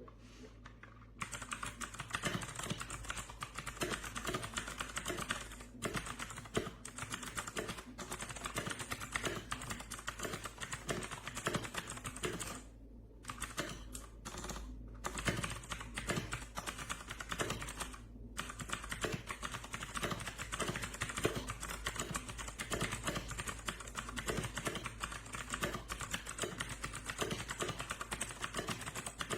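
Fast, continuous typing on an RK Royal Kludge RK61 60% mechanical keyboard: a rapid run of key clicks that starts about a second in and breaks briefly a few times in the middle.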